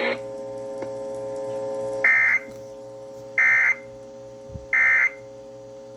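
Emergency Alert System end-of-message signal: three short, raspy digital data bursts about 1.4 s apart over a steady hum, marking the end of the alert message.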